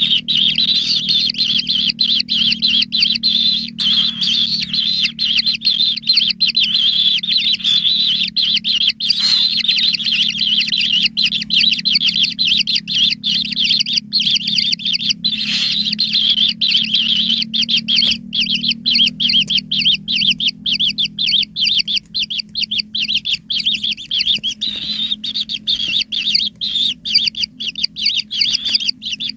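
White-throated kingfisher nestlings begging: a dense, unbroken run of rapid high chirps, with a low steady hum beneath that fades in the last third.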